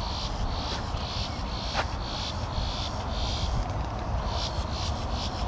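Insects chirping in a continuous chorus of rapid pulses, with a steady low rumble underneath.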